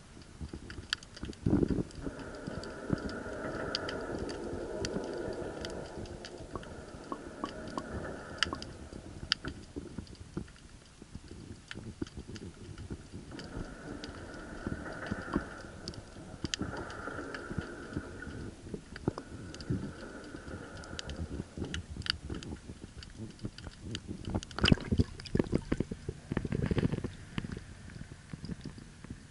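Underwater sound heard through an action camera's waterproof housing: scattered sharp clicks and crackles, with a steady hum that comes in twice and fades. Near the end come several heavier knocks as the camera is handled and lifted out of the water.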